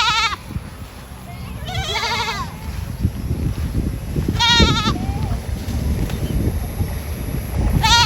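Goats bleating: short, high, quavering calls, four of them a couple of seconds apart, over a low rumbling background noise.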